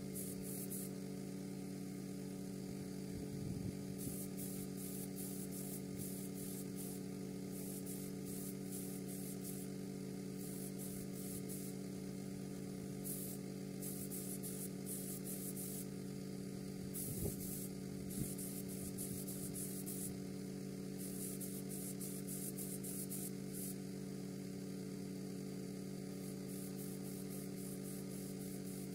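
Paint spray gun hissing in short repeated bursts as the trigger is pulled, spraying paint onto brake calipers, over a steady low hum.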